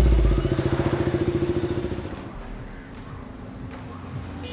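Motorcycle engine running as the bike pulls away, a fast pulsing beat that is loud at first and fades over about two seconds. A fainter steady hum follows.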